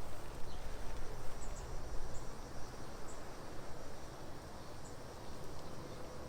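Outdoor ambience: a few brief high chirps about a second apart over a low rumbling noise that fades after the first few seconds.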